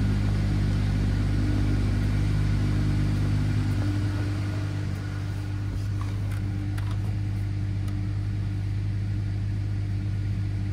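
2011 Lincoln MKS 3.5-litre EcoBoost V6 idling steadily. It is heard first at the exhaust tip, then a little more softly from inside the cabin. A few light clicks come about six to seven seconds in.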